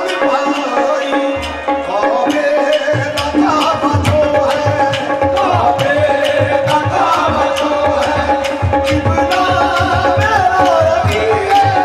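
Qawwali: a male lead singer's sung melody over a steady harmonium drone and tabla, with the tabla's deep bass strokes coming in about three seconds in.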